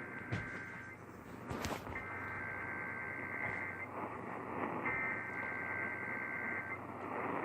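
Emergency Alert System SAME header data bursts: buzzy two-tone digital data in bursts of nearly two seconds with about a second between them. The last of one burst ends about a second in, then two full bursts follow, under a steady hiss of radio static.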